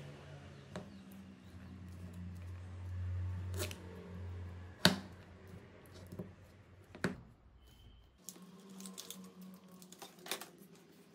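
Scattered sharp clicks and taps as 18650 lithium-ion cells are handled and pressed together on a cutting mat, the loudest about five seconds in, over a low steady hum. Lighter clicks cluster near the end.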